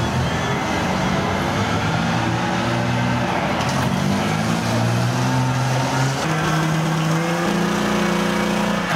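Alvis Striker tracked armoured vehicle's engine running as it drives past, its engine note shifting up in pitch several times.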